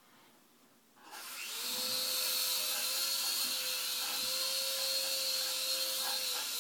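Small electric motors and rotors of an Air Hogs Helix 360 remote-control flying toy spin up about a second in, then run with a steady whine over a hiss of rushing air.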